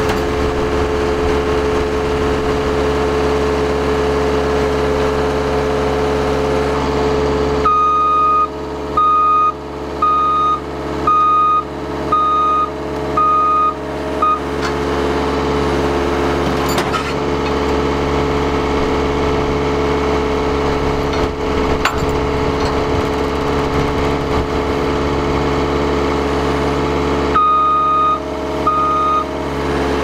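A John Deere 333G compact track loader's diesel engine running steadily, with its reverse alarm beeping about once a second: six beeps about a quarter of the way in and two more near the end.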